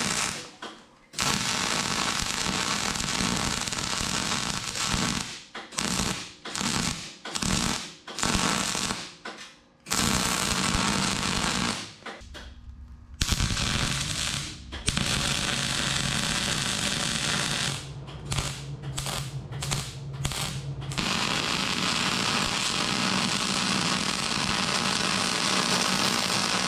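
Wire-feed welder arc crackling and sizzling as beads are run on a long steel beam. The weld goes in long runs broken by several short stop-start bursts, a row of them about five to ten seconds in and more around eighteen to twenty-one seconds.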